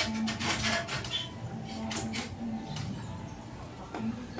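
Metal clicks, knocks and light scrapes of an aftermarket exhaust pipe and its bolts being handled and fitted against a Yamaha TTR150 mini bike's frame. A low hum breaks off and resumes underneath.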